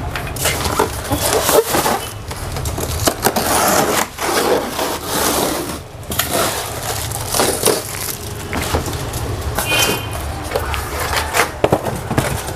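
A polystyrene foam packing box being opened by hand: the foam lid scraping and squeaking against the box, with packing tape and plastic wrapping crackling as they are pulled away. A steady low hum runs underneath.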